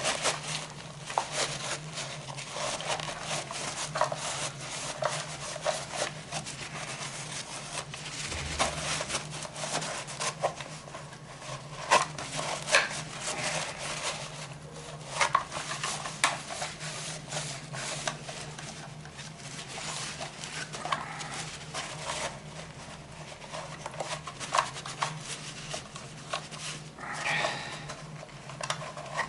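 Paper towel wiping and scrubbing the plastic inside of a Roomba waste bin: irregular rubbing and crinkling strokes with small knocks, over a steady low hum.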